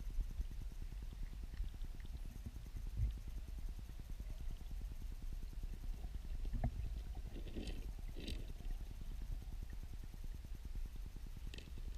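Low, steady rumble of weirpool water heard underwater, through the camera's housing. A few short clicks and ticks come in the second half.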